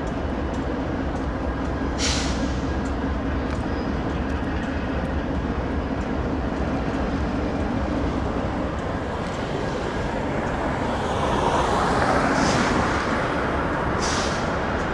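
Diesel locomotive engines running with a steady low rumble, growing louder about eleven seconds in as a Norfolk Southern GE C44-9W-led freight approaches slowly. Two short hisses come about two seconds in and near the end.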